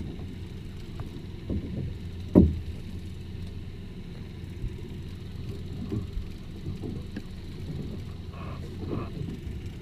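Steady low rumble of the fishing boat's outboard motor idling, with a single sharp knock about two and a half seconds in.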